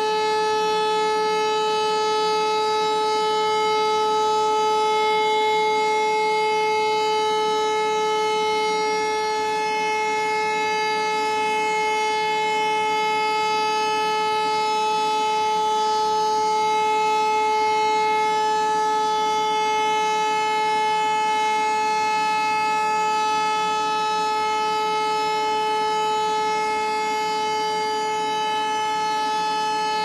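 A Siemens-Schuckert E57 civil-defence siren is running at full speed. It holds a loud, steady tone that neither rises nor falls.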